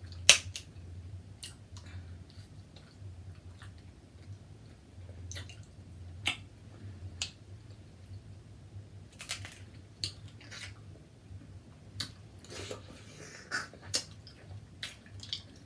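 Close-miked chewing and mouth sounds of eating, with scattered sharp clicks and smacks over a faint low hum.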